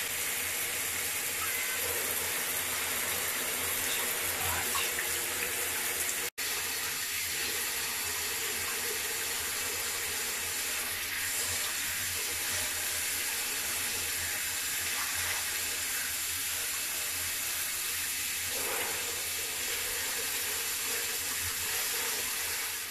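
Hand-held shower head spraying a steady stream of water over a wet cat and onto the bathtub. The hiss breaks off for an instant about six seconds in.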